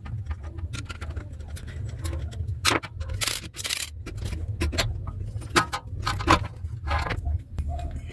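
Scattered metal clicks, clinks and scrapes as the screws are worked loose and the metal end cover of an industrial sewing machine's clutch motor is handled and pulled off. A steady low hum runs underneath.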